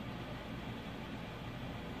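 Steady faint hiss and low hum with no distinct events: dead air in the television audio during the Emergency Alert System test.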